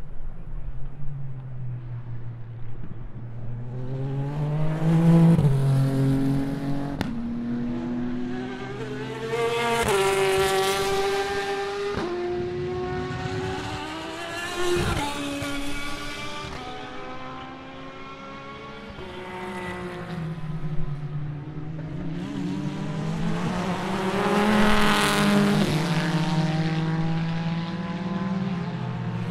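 Endurance race cars accelerating past through a corner, their engines climbing in pitch and stepping up through the gears. Several cars go by, so the sound swells loud and fades a few times.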